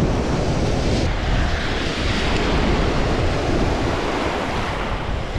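Waves washing onto a lake beach, with wind rumbling on the microphone.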